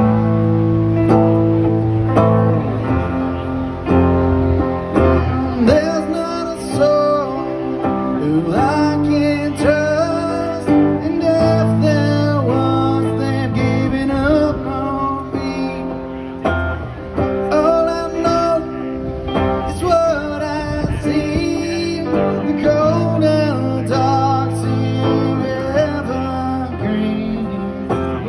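Live band music: an electric guitar and a keyboard playing sustained chords, with a man singing over them from a few seconds in.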